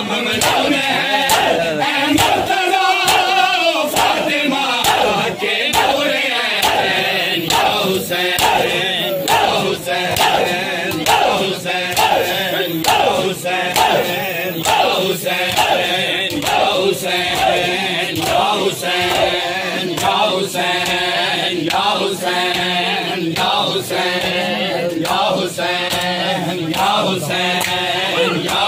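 A crowd of men chanting a noha in unison over the steady beat of matam: open hands slapping bare chests together in time.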